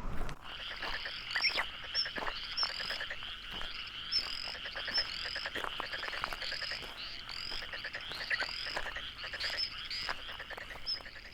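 A dense chorus of frogs calling: many overlapping, high-pitched chirping calls with short rising sweeps, starting abruptly at the beginning.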